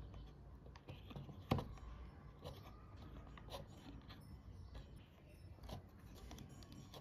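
Small metallic clicks and taps of an Allen key turning a small screw into the metal casing of a model turbojet engine kit, with one sharper click about a second and a half in.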